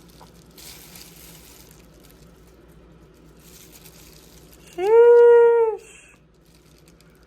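A single held vocal call, steady in pitch after a quick rise, lasting about a second, about five seconds in. Faint rustling comes before it.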